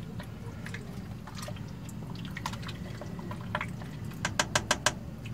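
A spoon stirring thick chili in a large stainless steel pot, with wet stirring sounds and small scrapes over a steady low hum, then a quick run of sharp clicks near the end.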